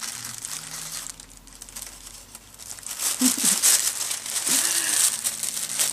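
Pink tissue paper crinkling and rustling as a wrapped gift is worked open at one end, quieter at first and louder from about three seconds in.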